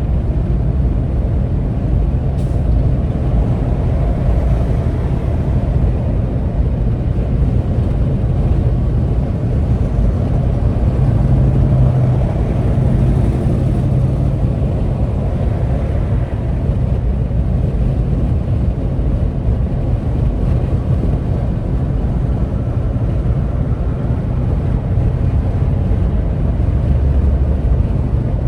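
Vehicle engine and road noise in slow traffic: a steady low rumble that swells a little around the middle.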